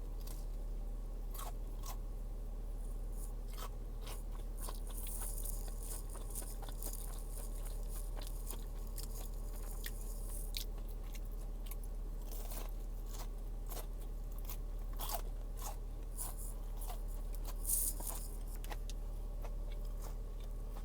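Crunchy fried food being bitten and chewed close to the microphone: a steady string of crisp crunches, with a sharper, louder crunch near the end.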